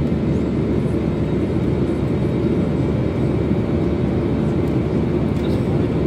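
Airliner cabin noise during the climb after take-off: the jet engines and rushing air make a steady, even, mostly low rumble.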